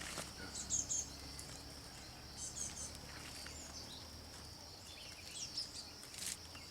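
Small birds giving short high chirps in a few brief bursts, about a second in, halfway and near the end, over a steady high-pitched insect drone.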